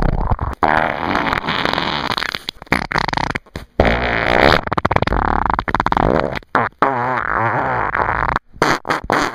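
Loud, rattling, sputtering snore-like noise in long stretches, broken by short pauses about three and a half seconds in and again near the end.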